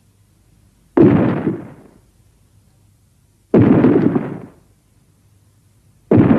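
Monster roar sound effects for a film lion or griffon. There are three short, harsh roars, each starting suddenly and fading over about a second, roughly two and a half seconds apart; the third begins near the end.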